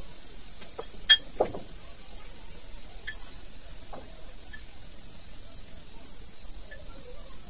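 Small scissors snipping green chillies: a few scattered sharp clicks, the loudest about a second in, over a steady background hiss.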